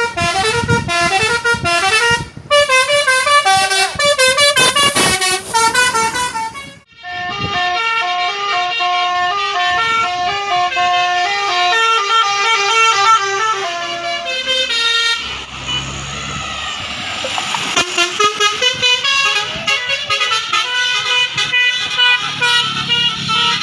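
Indonesian bus 'telolet' horns: a set of electric air horns playing quick multi-note tunes, one phrase after another. About two-thirds of the way through the tune breaks off briefly and a low rumble comes up before the horn melodies start again.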